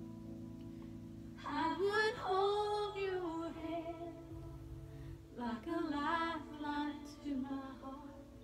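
A woman singing two phrases over a steady instrumental backing.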